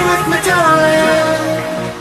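Background music: an electronic pop remix with a sung vocal line gliding between held notes over a steady backing.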